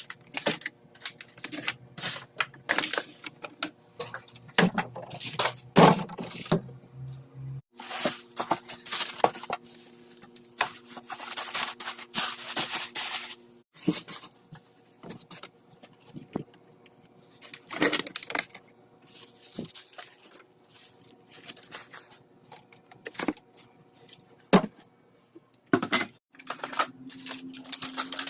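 Objects being handled and set down: irregular clicks, taps and knocks with bursts of rustling, over a faint steady hum.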